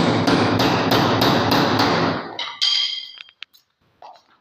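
Rapid, steady hammering, about three blows a second, which stops a little over two seconds in. A short metallic ring and a few light knocks follow.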